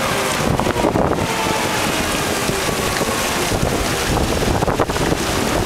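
Storm wind buffeting the microphone: a loud, steady rush of wind noise.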